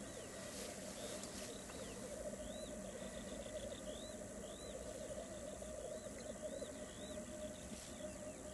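Black grouse cocks at a lek bubbling in a continuous chorus, with a few brief hisses. Another bird repeats a short high arched note about twice a second.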